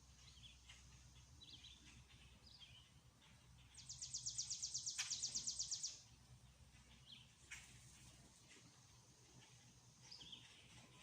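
Songbirds calling: scattered short high chirps, and about four seconds in a loud, fast, dry trill of about ten even notes a second that lasts about two seconds.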